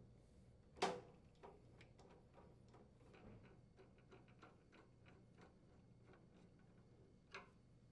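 A Phillips-head screwdriver driving a mounting screw into a wine cellar's base grill: one sharp click a little under a second in, then faint scattered ticks as the screw turns, and another click near the end.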